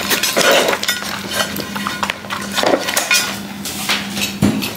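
A run of light clicks, knocks and clatter on a hard surface, irregularly spaced, over a faint steady low tone.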